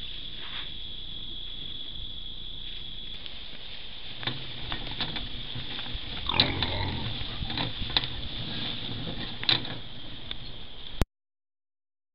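Feral pigs grunting and snuffling close to the microphone, with clicks and rustling from about four seconds in, over a steady high-pitched whine. The sound cuts off abruptly near the end.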